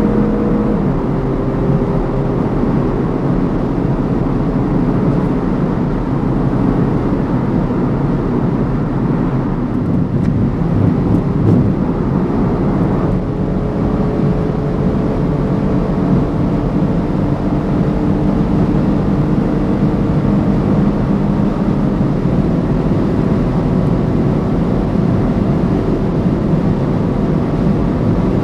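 BMW M135i xDrive's turbocharged 2.0-litre four-cylinder engine running hard at high speed under dense road and wind noise. The engine note drops with an upshift about a second in, then holds nearly steady and rises slowly.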